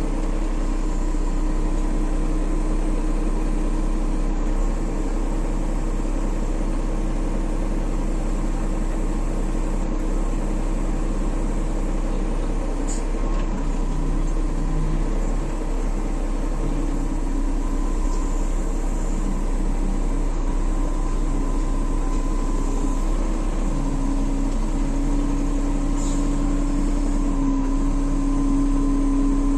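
A machine's engine running steadily, a continuous hum with a few faint clicks, growing a little louder near the end.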